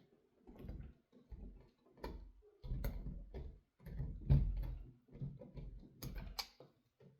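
Neutral wires being handled and twisted together for a splice in an electrical box: irregular scraping, rustling and small clicks, with handling thumps on the microphone.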